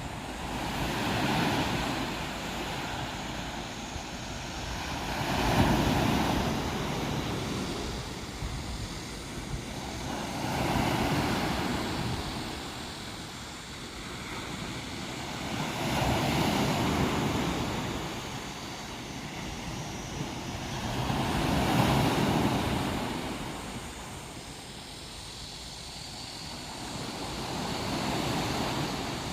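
Sea waves breaking and washing up on the beach, each surge swelling and fading about every five to six seconds.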